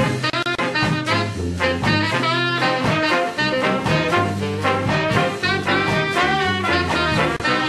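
Upbeat ska instrumental music from a brass band: a horn section of saxophones and trumpet carrying the melody over a sousaphone bass line, with drums and guitar keeping the beat.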